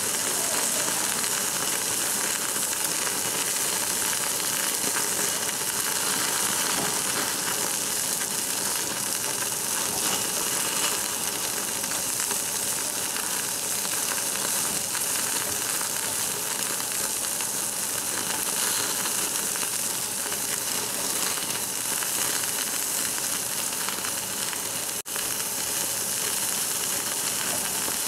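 Slices of Jeju black pork sizzling steadily on a hot ridged cast-iron barbecue grill plate, fat spitting with an even hiss, with one very brief break near the end.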